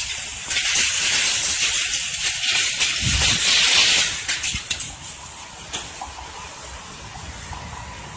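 Fast floodwater rushing and spraying around a capsizing floating building. The rush swells about half a second in and eases after about four seconds, with a couple of sharp knocks after it.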